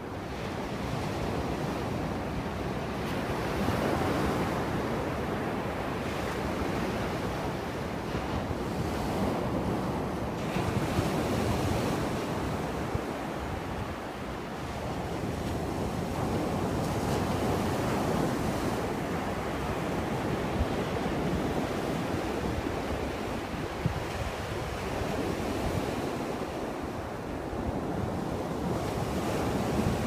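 Sea surf breaking and washing up a flat sandy beach, swelling and easing every few seconds as the waves come in, with wind rumbling on the microphone.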